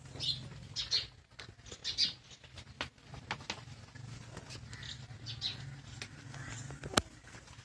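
A calf suckling at a cow's udder, with short sucking sounds about once a second over a low steady hum. There is a single sharp knock near the end.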